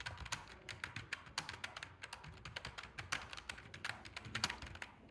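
Typing on a computer keyboard: a quick, uneven run of keystroke clicks, several a second, with brief gaps.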